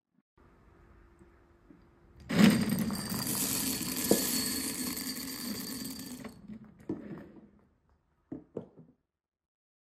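Small hard beads pouring from a cup into a cut-glass goblet: a sudden, dense clatter of beads on glass that tapers off over about four seconds. It ends with a few single clicks as the last beads drop.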